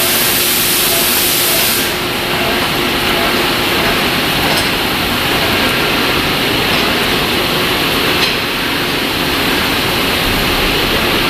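Large lathe running through a trepanning cut: a steady rushing noise with a faint hum beneath it. The hiss in the highest range drops away about two seconds in, and a few light ticks come later.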